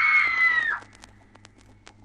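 A high-pitched shriek, held briefly and then dropping in pitch as it cuts off under a second in, from a horror sound-effects record. Faint scattered record crackle and a low hum follow.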